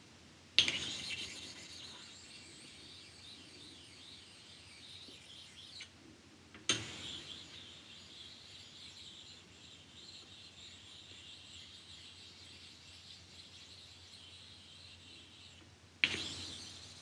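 Hardened steel parallel blocks clinking against each other or the machine table, three times; the first two clinks are each followed by a high metallic ringing that lasts about five seconds and stops suddenly, as if a hand damps the block, and the third comes near the end.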